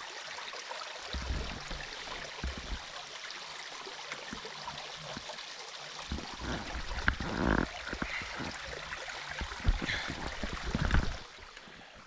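Waterfall-fed stream water running steadily, with low bumps and a few brief louder knocks on top. The water sound drops away sharply near the end.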